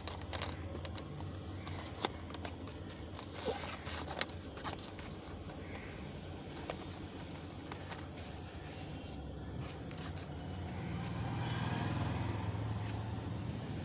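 Cardboard box of markers being handled: scattered light clicks and scrapes over a steady low background rumble that swells near the end.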